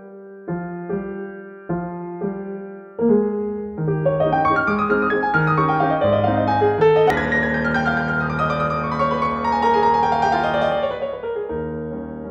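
Background piano music: spaced chords at first, then busier playing with a run of notes falling in pitch through the middle.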